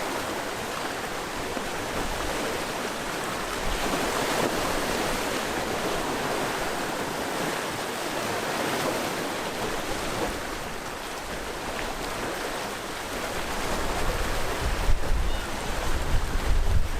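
Sea waves washing against the shore in a steady surf hiss that swells and eases. Near the end wind starts buffeting the microphone in low, gusty rumbles.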